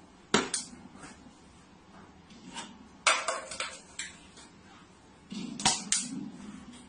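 Sharp clicks and short clattering knocks of hard objects on a hard tabletop: two quick clicks at the start, a clatter about three seconds in, and a louder pair of knocks near the end as a plastic bottle is set down.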